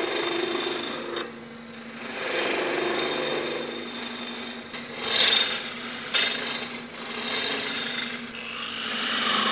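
Turning gouge cutting a pale hardwood blank spinning on a wood lathe: a rough, hissing rasp that swells and eases with each pass, dropping out briefly about a second in, over the lathe's steady hum.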